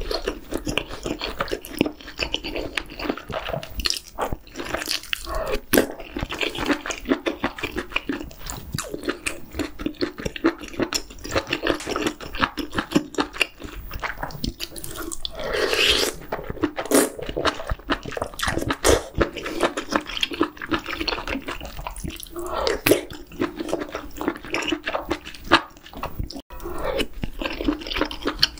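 Close-miked eating sounds of octopus hot pot with chewy jjolmyeon noodles: steady wet chewing with many small mouth smacks, and a longer slurp about halfway through.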